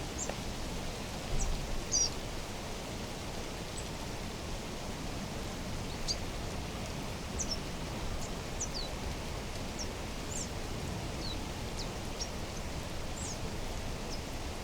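Small birds giving short, thin, high chirps, scattered throughout, over a steady rushing background hiss of mountain outdoor ambience. Two brief low thumps come near the start, about half a second apart.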